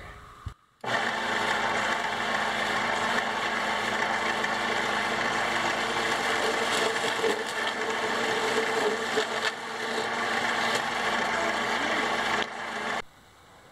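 A homemade vertical bandsaw, rebuilt from a RipSaw portable bandsaw mill, running underpowered on a cordless tool battery of the wrong voltage. Its drive gear whines a little as a small piece of wood is fed into the blade. It starts about a second in, runs steadily, then winds down and stops near the end.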